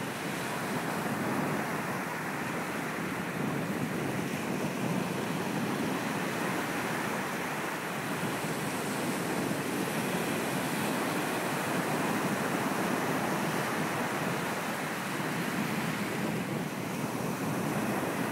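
Ocean surf breaking and washing up a sandy beach: a continuous rush that swells and eases slightly as successive waves come in.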